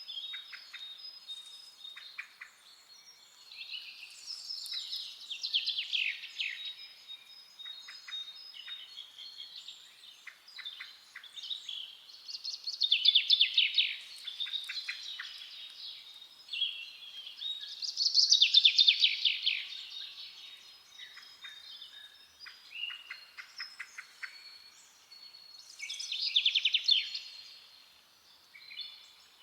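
Forest birds singing: loud, rapid trilled song phrases every several seconds, with softer chirps in between.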